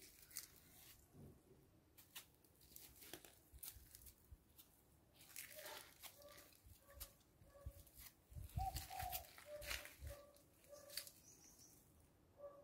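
Near silence with scattered faint clicks, and from about halfway a small bird chirping, a short call repeated roughly every half second.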